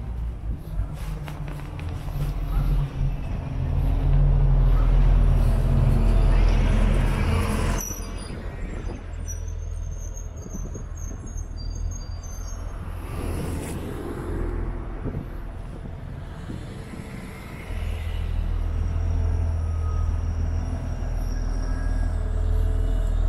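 Street traffic. A vehicle passes close in the first several seconds with a loud low rumble and rising noise, which cuts off suddenly. The street then goes quieter with a few short high chirps, and a low rumble picks up again about two-thirds of the way in.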